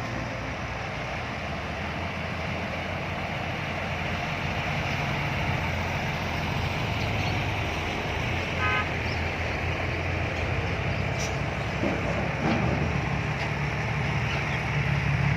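Heavy diesel dump truck engines running as the trucks pull away, a steady low rumble that grows louder near the end. A brief series of short beeps comes about nine seconds in.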